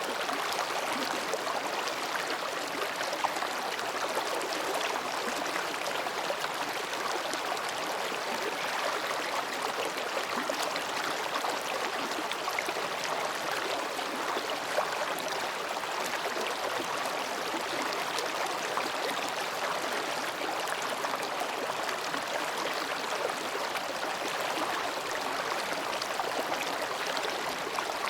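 Mountain stream babbling steadily between rocks, an even, continuous water sound.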